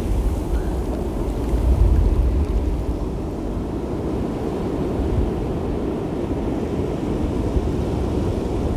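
Surf from a stormy sea breaking on the shore, with strong wind rumbling on the microphone; the gusts are heaviest in the first two seconds, then settle into a steady rush.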